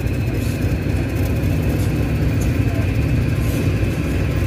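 Diesel passenger train running slowly into the platform with a low, steady engine rumble.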